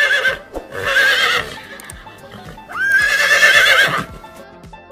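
Horse whinnying: a call that ends just after the start, then two more, the last about a second and a half long, each high-pitched and wavering. Background music with a steady beat runs underneath.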